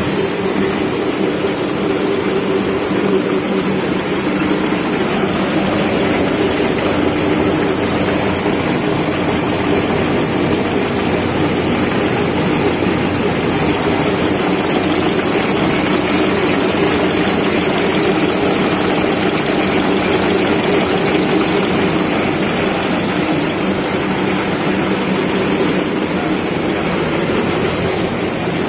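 Toilet roll paper rewinding machine running: a loud, steady mechanical drone with a low hum.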